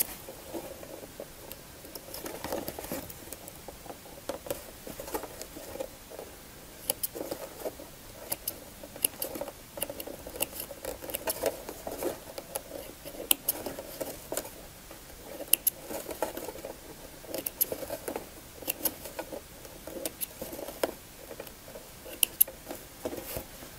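Small spring-loaded thread snips clicking sharply and irregularly as they cut through basting-stitch threads, over soft rustling of cotton fabric being handled.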